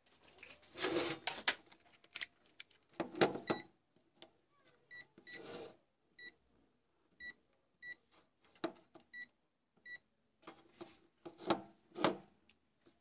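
Digital multimeter giving several short, high beeps as its rotary dial and buttons are worked, amid clicks, knocks and rustling of hands handling the meter and parts on the bench.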